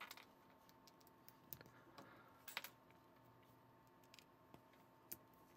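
Faint, scattered clicks of small plastic Lego pieces being handled and pressed together as round white pieces are slid onto gray bars, with the loudest click about two and a half seconds in.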